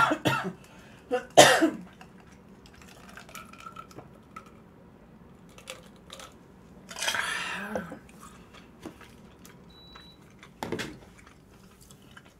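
Close-miked eating sounds of someone working through a plate of Chapagetti noodles: two sharp, loud mouth or dish sounds in the first couple of seconds, a longer noisy sound about seven seconds in, and another short one near the end, with quiet chewing in between.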